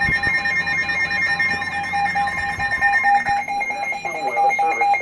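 Weather radio alert alarm beeping in a fast, even, repeating pattern, signalling a severe thunderstorm warning. About three and a half seconds in, a voice starts reading the warning under the beeps.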